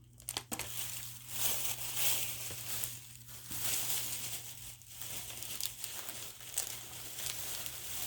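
Plastic crinkling and rustling as a plastic shopping bag and packaged items are handled. It starts about half a second in and goes on with short dips.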